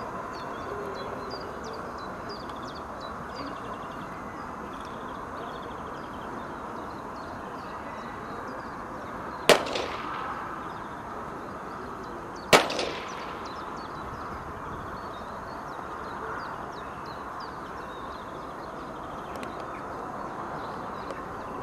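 Two gunshots about three seconds apart, each a sharp crack with a short echo: blank-pistol shots fired as the gun-sureness test during a German Shepherd's heelwork in a Schutzhund (IPO) obedience routine.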